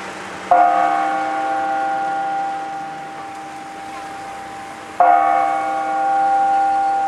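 A tower bell struck twice, about four and a half seconds apart, each stroke ringing on with a chord of steady tones that fades slowly. The strokes are slow and evenly spaced, like a clock bell striking the hour.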